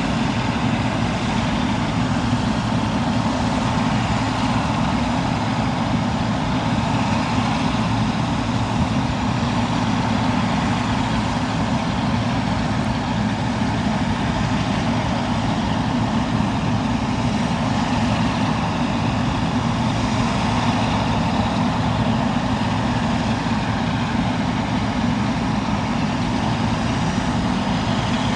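Boeing 777F freighter's jet engines running with a steady, unchanging noise.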